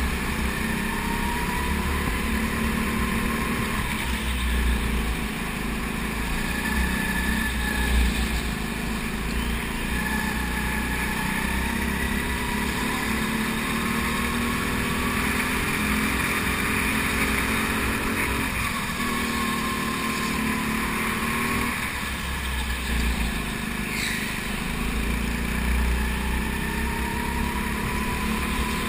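Go-kart engine heard onboard, its pitch rising as the kart accelerates and falling as it slows, over and over through the laps' straights and corners, with a steady low rumble underneath.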